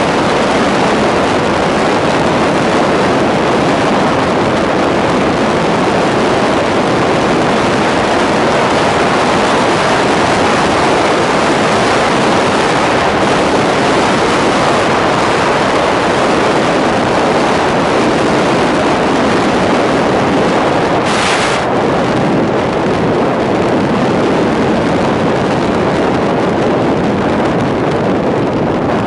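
Steady wind rush over the microphone of a camera mounted on a moving vehicle at road speed, with the vehicle's running and road noise beneath it. A brief hiss about three-quarters of the way through.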